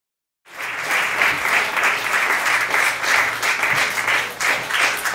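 Audience applauding, with many hands clapping together; it starts abruptly about half a second in.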